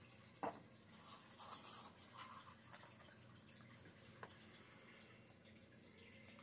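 Faint sounds of small craft supplies being handled while preparing to mix resin, among them a paper mixing cup being set down. One sharp click about half a second in, then a second or so of light clatter and scraping, and a single small tick later, over a low room hum.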